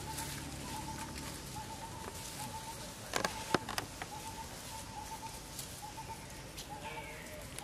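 A short animal call repeated steadily over and over, with a few sharp clicks a little after the middle and some higher calls falling in pitch near the end.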